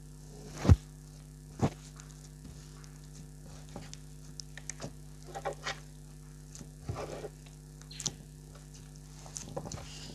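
Clear slime being squished and worked by hand, giving scattered small sticky clicks and squelches, with two sharp knocks about a second and two seconds in. A steady electrical hum runs underneath.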